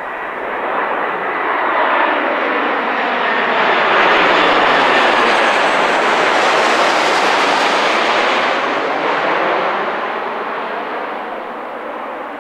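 Four-engine Airbus A340-313 jet airliner, with its CFM56 turbofans, flying low overhead on final approach. The engine rush swells to its loudest about halfway through as the plane passes over, then fades as it moves away toward the runway.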